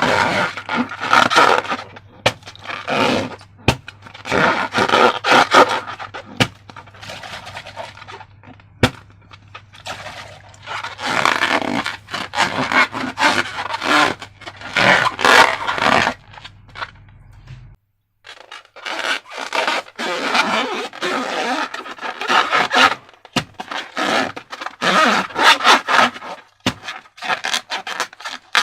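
Slime being worked and mixed: irregular bursts of scraping and crackling, with sharp clicks here and there.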